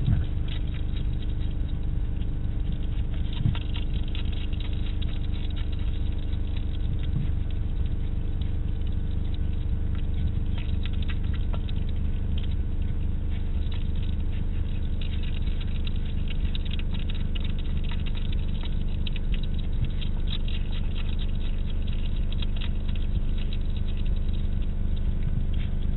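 European hedgehog chewing food from a dish, a dense run of small clicks that gets busier in the second half, over a steady low hum.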